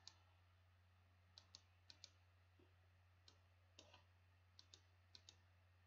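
Near silence: a low steady hum with faint, scattered clicks, several coming in quick pairs.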